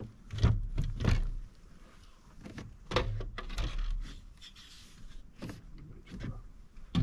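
Irregular knocks, thumps and scrapes on a plastic fishing kayak as a fish and gear are handled, with louder thumps about half a second and a second in and again about three seconds in.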